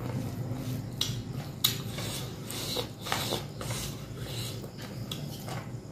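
Close-up eating sounds: a person chewing and smacking food while his fingers gather rice against a plate, with scattered short clicks and scrapes. The loudest is a sharp click about a second and a half in.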